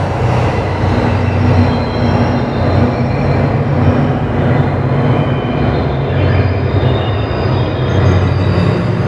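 Electronic ambient drone: a dense rumbling wash with low held tones that shift every second or two, and faint high tones over a steady hiss.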